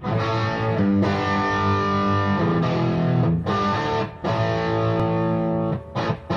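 Electric guitar with heavy distortion playing sustained chords that change every second or so, ending with a couple of short chord stabs that ring out.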